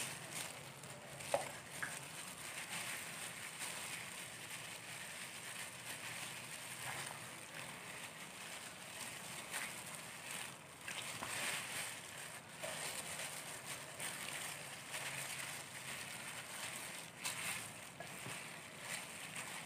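Plastic-gloved hands rubbing seasoning into a raw whole chicken: irregular crinkling and rustling of the gloves with soft wet squelching of the skin. A sharp click comes about a second in.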